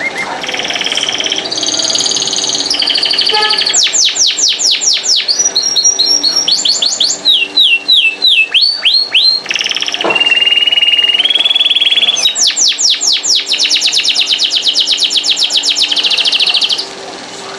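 Canary singing a long, varied song: held whistled notes, then runs of rapid sweeping notes, a lower buzzy trill about halfway through, and a long fast rolling trill that stops abruptly near the end.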